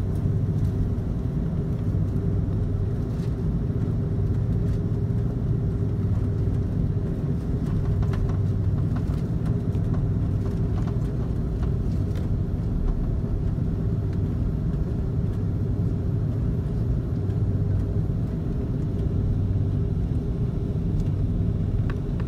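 Steady low rumble and engine drone heard inside a passenger jet's cabin as it rolls along the ground, with no marked change in pitch or loudness.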